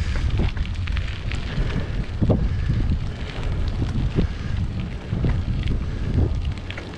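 Strong wind buffeting the microphone: a heavy low rumble with scattered thumps.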